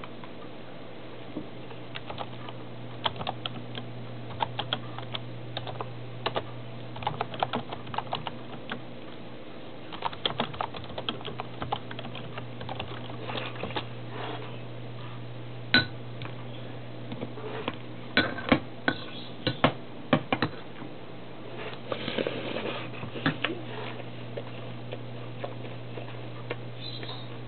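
Breakfast being eaten close to the microphone: irregular clusters of small clicks, taps and crunches, over a steady low hum.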